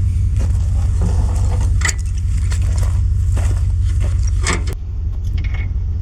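Motor vehicle running with a steady low rumble, with loose clinks and rattles over it, a few sharper ones about two seconds in and near the end.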